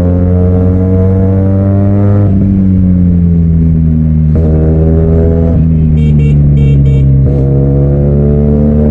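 QJ Motor SRK400 parallel-twin engine breathing through an aftermarket Ixil exhaust with its dB killer removed, pulling through the gears: the note climbs steadily and drops back at each upshift, about three times. Four short high beeps sound near the middle.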